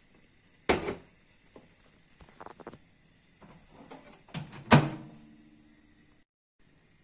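A door being handled in a kitchen: a loud clunk about a second in, a few light clicks, then a second loud clunk near five seconds followed by a brief low ring.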